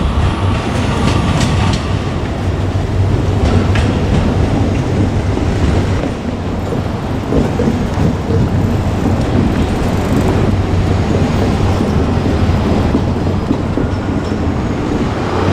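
JR Kyushu KiHa 200 diesel railcar running past with a steady, loud rumble of engine and wheels on the rails. A few wheel clicks over rail joints come in the first few seconds.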